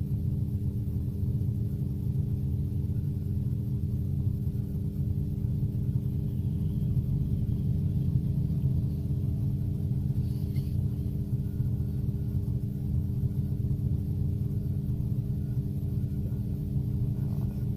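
Xiamen King Long electric low-floor midibus heard from inside its cabin while it stands still: a steady low rumbling hum with a few steady tones over it, without change.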